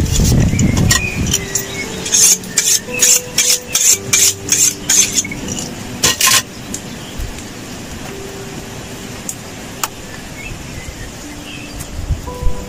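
A knife being sharpened: a run of quick, high-pitched metal scraping strokes, about three a second, ending in one longer stroke about six seconds in. After that only quieter handling sounds follow.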